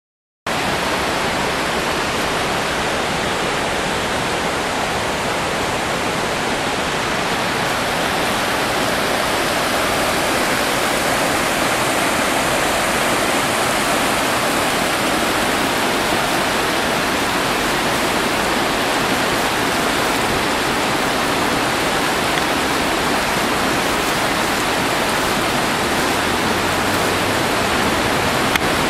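Shallow mountain river rushing over rocks, heard close as a loud, steady rush of water that starts abruptly about half a second in.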